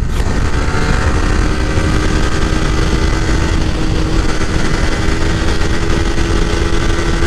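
Motorcycle engine running at a steady pitch while being ridden, under heavy wind rumble on the microphone.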